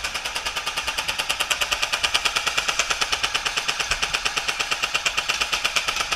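Electric airsoft gun (AEG) firing a long full-auto burst: a fast, even string of sharp mechanical shots with no break.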